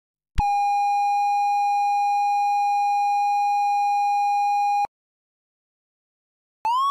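Modular synth oscillator sounding a steady, bright electronic tone that starts abruptly and cuts off sharply after about four and a half seconds. Near the end the oscillator comes back, its pitch starting to glide as a sine-wave LFO sweeps its frequency.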